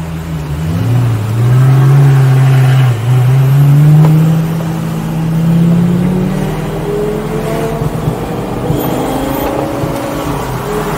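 2004 Lamborghini Gallardo's straight-piped 5.0-litre V10 accelerating hard. The note climbs, dips briefly at an upshift about three seconds in, and climbs again until about six and a half seconds in. Then it drops back to a lower, steady running note.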